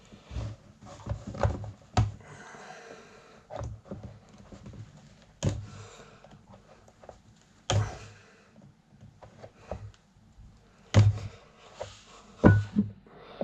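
Knocks and clunks of desk fan parts being handled and taken apart, with sharp knocks about two, five and a half, eight, eleven and twelve and a half seconds in, and quieter rattling and scraping between them.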